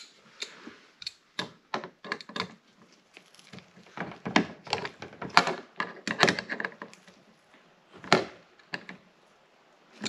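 Pliers and metal handle parts clicking and tapping as a car's exterior door handle mechanism is worked into the door: irregular sharp clicks, busiest in the middle, with one louder knock about eight seconds in.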